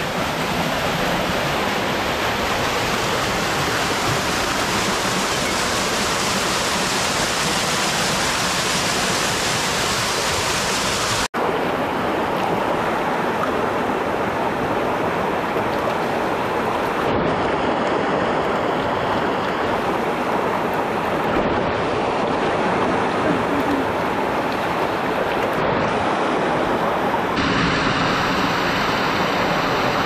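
Steady rush of river water flowing and cascading, loud and unbroken except for an instant's dropout about eleven seconds in.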